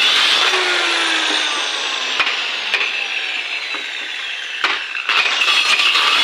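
A power tool cutting wood: a steady, noisy whine with slowly falling tones that eases off in the middle and picks up again near the end, with a few sharp clicks.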